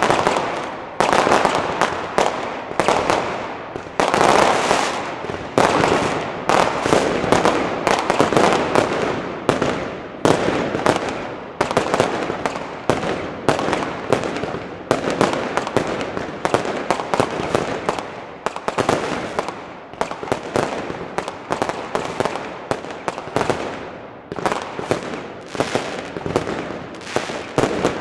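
Consumer firework batteries (multi-shot cakes) firing a continuous barrage: sharp bangs of launches and star bursts several a second, overlapping and each trailing off.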